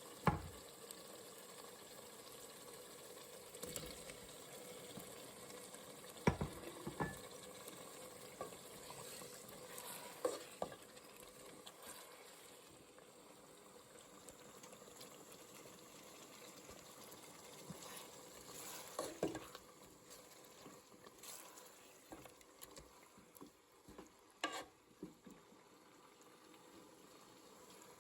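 Potato egg curry sizzling in a pan as it cooks, with a spoon knocking against the pan now and then as it is stirred.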